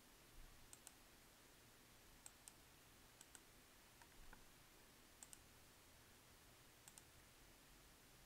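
Faint computer mouse clicks, mostly in quick pairs, about five times over near silence.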